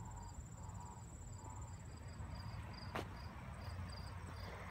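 Summer insects calling: a steady high-pitched trill with a second insect's short chirp repeating about twice a second, over a low steady rumble. A single sharp click about three seconds in.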